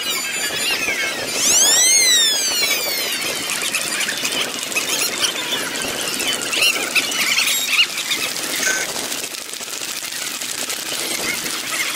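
Parade street sound played back at fast-forward speed: crowd noise and passing vehicles pitched up into a squeaky, chirping chatter. About two seconds in, a quick whistle-like glide rises and falls.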